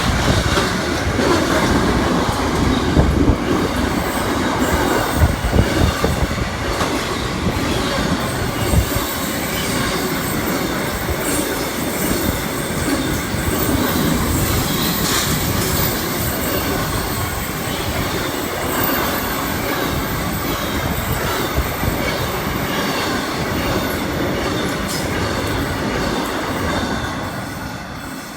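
Train moving along the tracks through the station, loudest over the first several seconds and dying away near the end.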